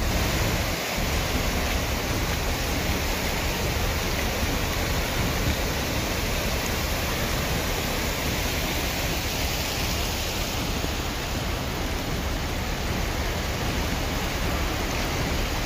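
Fast-flowing floodwater rushing along a street after intense rain, a steady, unbroken rushing noise.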